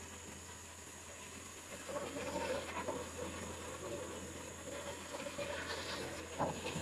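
Bandsaw running with a steady motor hum. From about two seconds in, its blade cuts through a hardwood beam, and a single knock comes near the end.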